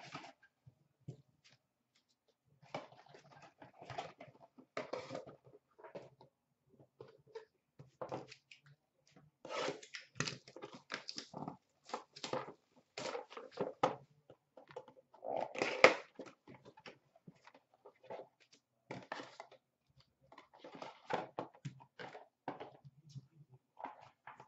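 Cardboard puck boxes and a plastic puck display case being handled and opened: scattered rustling, scraping and clicks, the loudest knock about sixteen seconds in.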